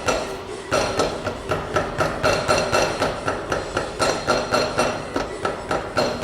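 Rapid, regular metallic knocking, about three to four knocks a second, each with a short ring, from a Nissan Livina's underside or suspension as it is shaken by hand on a lift. It is a knock found on both sides of the car, but not the suspension noise the owner complains of.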